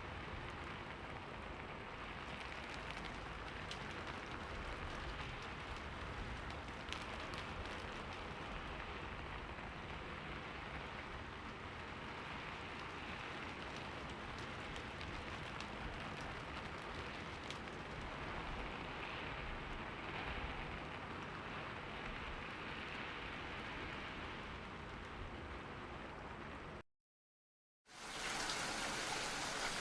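Steady rainfall, a dense even hiss with scattered drop ticks. About 27 seconds in it cuts to silence for about a second, then resumes louder and brighter.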